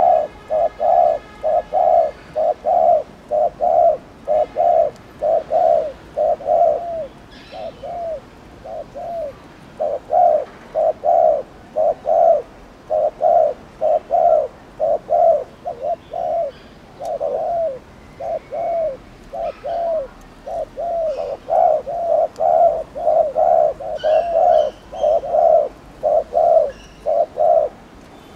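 Spotted dove giving its rapid 'gù' coo: a steady run of short, low coos at about two a second, spaced a little more loosely about a third of the way in.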